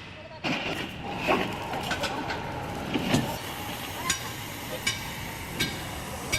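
Irregular metal clanks and taps, several ringing briefly, over steady workshop noise.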